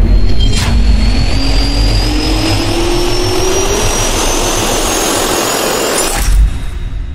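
Jet-turbine spool-up sound effect for a logo intro: a loud rushing noise over a heavy low rumble, with a whine rising steadily in pitch. It cuts off about six seconds in with a low thump and fades away.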